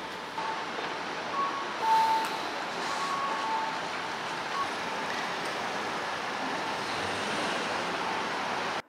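Steady traffic noise with a few short, high chirps in the first half, cutting off abruptly near the end.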